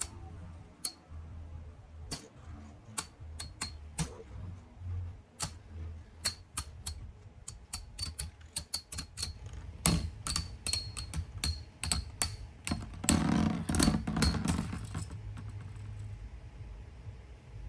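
Two metal Beyblade tops, Jade Jupiter S130RB and Tornado Herculeo 105F, battling in a plastic BB-10 Attack Stadium. A low steady spinning hum is broken by many sharp clacks as the metal wheels collide, thickening into a dense rattling flurry of clashes about thirteen seconds in.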